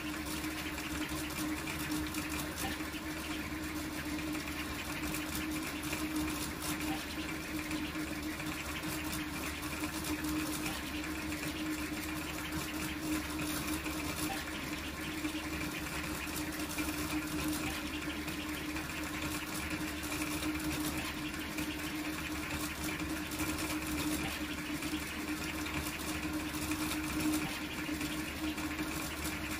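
Large toolchanger 3D printer printing fast: stepper motors driving the print head in quick moves, with a steady hum and the even rush of its fans.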